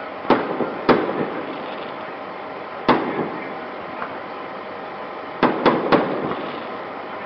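Aerial fireworks bursting: six sharp bangs, two in the first second, one about three seconds in and three in quick succession near the end, each trailing off in a short rumbling echo.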